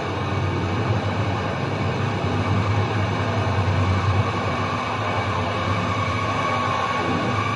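Dark-ambient noise music: a dense, steady low rumble under a thick haze of noise, with a faint high tone coming up in the second half.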